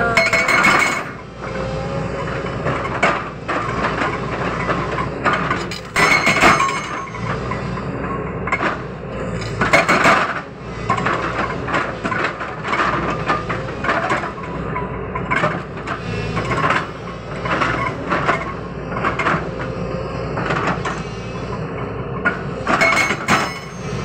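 JCB 220 LC excavator's hydraulic breaker hammering on rock, a continuous pounding with the machine's engine running underneath. It swells louder a few times: about a second in, twice mid-way and near the end.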